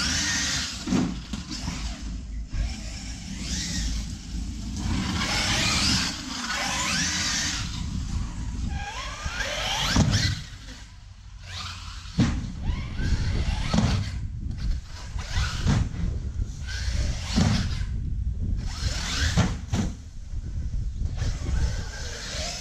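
Large-scale RC car driving hard, its motor and drivetrain whining up and down in pitch as it speeds up and slows again and again, over the noise of its tyres on the ground.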